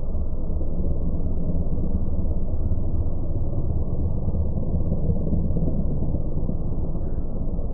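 Low, steady rumble of heavily slowed-down audio: a crop-dusting plane's engine approaching in the distance, mixed with wind on the microphone, all pitched far down by the slow motion.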